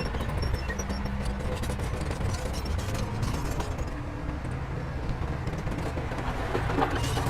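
Heavy diesel construction machinery running steadily, with scattered short clanks over the engine rumble.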